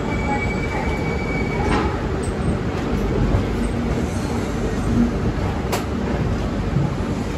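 Passenger train coaches rolling slowly out of a station, heard at an open coach door: a steady rumble of wheels on rail, with a faint high wheel squeal in the first couple of seconds and two sharp clicks.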